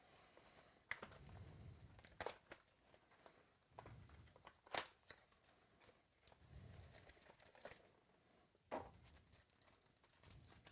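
Faint tearing and crinkling of trading-card pack wrappers being opened by hand, with several sharp crackles.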